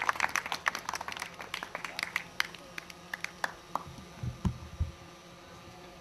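Audience applause dying away into scattered claps. Near the end, two low thumps.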